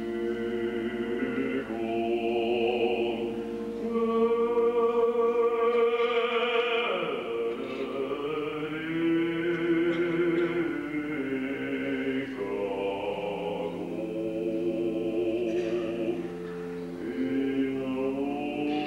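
Male solo voice with a wide vibrato singing long held notes over a men's choir sustaining chords.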